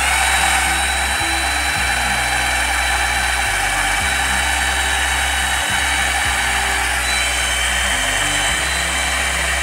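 A 12-volt cordless drill/driver running steadily at full speed, a small bit boring into a wooden plank, with a high motor whine and no pauses.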